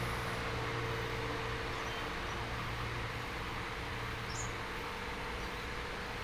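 Steady outdoor background ambience: an even hum and hiss, with a few brief, high bird chirps, the clearest about four seconds in.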